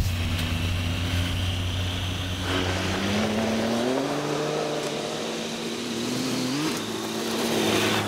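Motorcycle engine running and accelerating, its pitch climbing through the middle with a quick rev near the end, then cutting off suddenly.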